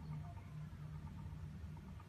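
Low steady hum, with faint high chirps over it.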